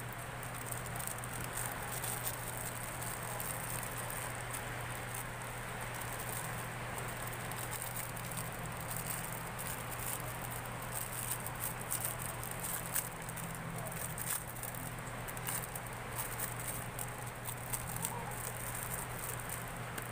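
Steady rain pattering, with many small ticks of drops through it and a low steady hum underneath.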